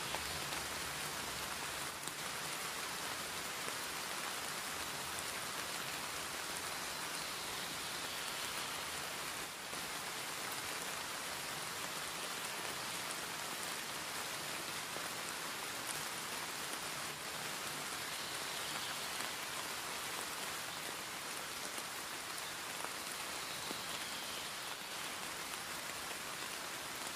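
Heavy rain falling steadily on open stone paving, an even, unbroken hiss.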